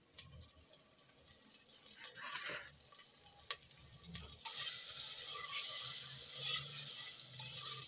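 Boiled mustard greens and spinach frying in hot oil in a clay pot: soft wet handling noises at first, then from about four and a half seconds in a steady sizzle as the greens hit the oil and are stirred with a metal spatula.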